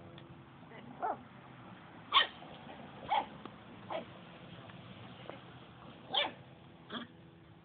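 Puppy giving a series of short yips and barks, about six of them a second or so apart; the loudest comes about two seconds in.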